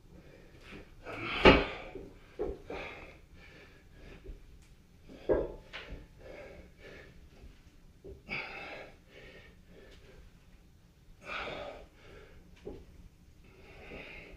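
A man's hard breathing and forceful exhales while doing T-bar squats with a plate-loaded barbell, the exhales coming about every three seconds in the second half. There is a loud knock about a second and a half in and a smaller one about five seconds in.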